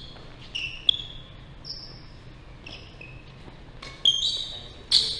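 Court shoes squeaking on a wooden badminton court floor: a string of short high squeaks, some sliding slightly downward, with a sharp knock about a second in and two louder sharp hits near the end.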